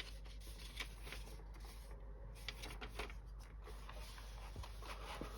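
Faint handling noises: light rustling and a few small clicks as kit packaging and parts are moved about.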